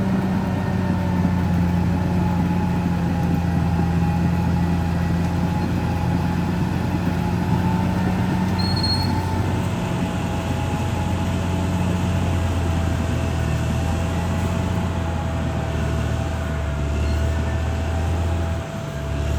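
Caterpillar D6R XL bulldozer's diesel engine running steadily under work, with a thin high whine over the engine note. The engine note drops briefly near the end.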